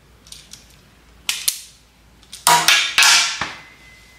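Sharp snaps and clicks of hand tools working on electrical wire: a few light ticks, two crisp snaps, then a louder burst of clicking and clatter about two and a half seconds in.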